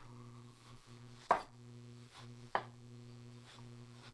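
Shun Santoku knife slicing down through a tomato and knocking on a wooden cutting board, two sharp strokes about a second and a quarter apart. A steady low hum runs underneath.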